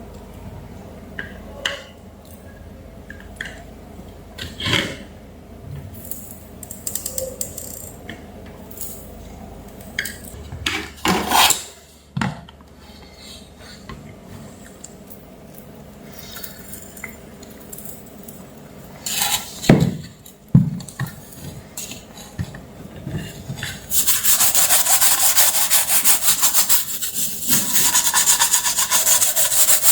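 Scattered knocks and clicks of things being handled on a workbench, then, about two thirds of the way in, a rapid rubbing or scraping that goes on without a break.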